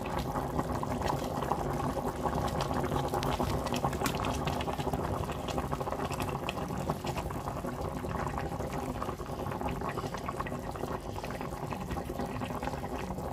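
Pot of oxtail and tomato stew boiling on the hob: a steady bubbling with many small pops.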